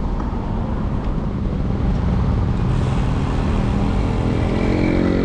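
A motor vehicle running over a steady low road rumble. An engine note comes up and grows louder over the last couple of seconds.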